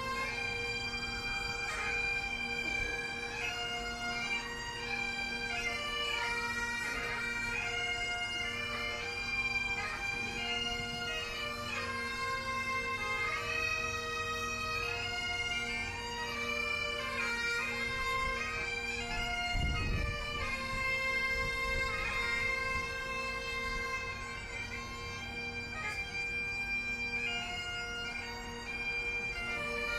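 Bagpipes playing a slow melody over steady, unbroken drones, as a lament during an act of remembrance. About two-thirds of the way through there is a brief low rumble.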